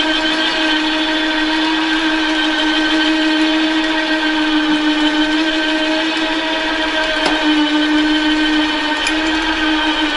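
Electric winch motor and gearbox running under load, a steady whine that holds one pitch.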